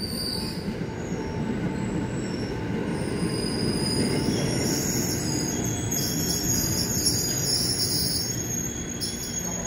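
KRL Commuter Line electric train rolling slowly into the station, its rumble growing louder, with high-pitched wheel squeal setting in about three seconds in and going on as the cars pass.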